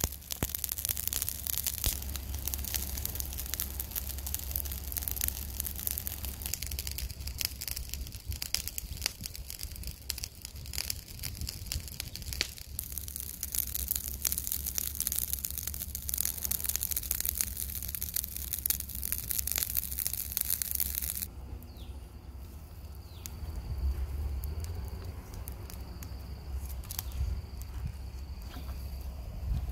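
Dense crackling and hiss from a charcoal fire grilling a salt-crusted fish, over a steady low rumble. About two-thirds of the way in it changes abruptly to a quieter background with a thin steady high tone.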